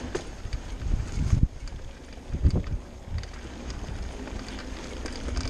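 Mountain bike rolling along a dirt singletrack: wind buffeting the camera microphone over the tyre noise, with low thumps and rattles as the bike goes over bumps, the clearest about a second and a half and two and a half seconds in.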